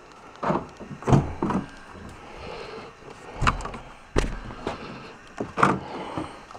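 Minivan driver's door being worked: a series of clicks and knocks, with the heaviest thuds between about three and a half and four seconds in as the door is shut.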